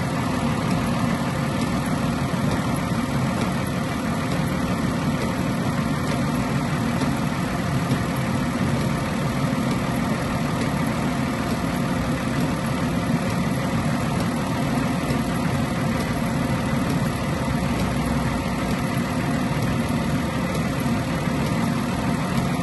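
2012 Ford Escape's 3.0 V6 engine idling steadily, under full electrical load with lights, heater, wipers and radio all switched on.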